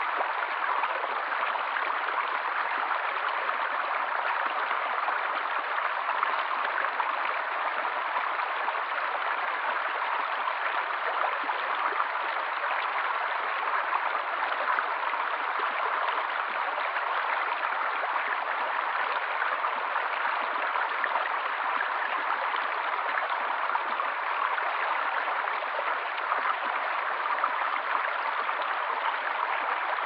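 Shallow rocky stream flowing steadily over stones, a continuous even rush of water.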